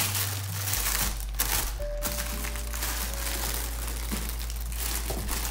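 Shiny red gift-wrapping paper crinkling and rustling as a present is torn open and unwrapped by hand, over background music.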